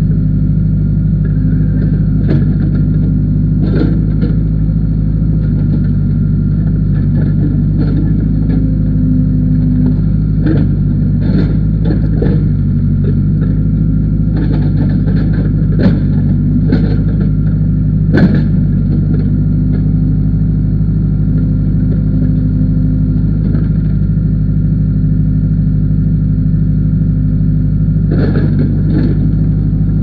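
Case backhoe loader's diesel engine running steadily, heard from the operator's seat, its note shifting a little as the hydraulics are worked. Short clanks and knocks from the digging bucket and boom come at intervals, the sharpest two just past the middle.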